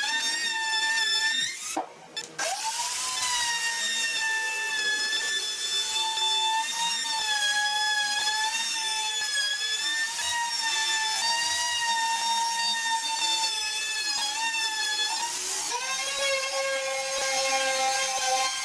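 A high-speed electric power tool whining as it works wood, its pitch wavering slightly with the load. It cuts out briefly about two seconds in, and its pitch shifts near the end.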